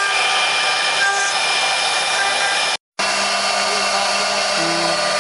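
4-axis CNC wood router spindles cutting wood on the rotary axis: a steady high whine with the rasp of the cutter. The sound drops out completely for a moment a little past halfway, then resumes unchanged.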